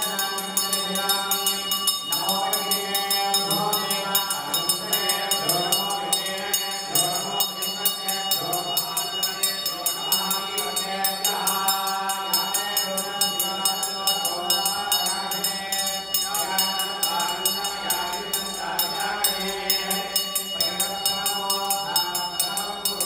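Devotional chanting in a melodic line over a steady drone, with fast, even jingling as of small bells or cymbals.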